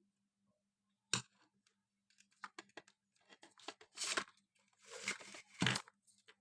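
Hands handling wiring and materials: a sharp click about a second in, then scattered small clicks and a few short tearing, rustling scrapes, the loudest near the end. A faint steady electrical hum runs underneath.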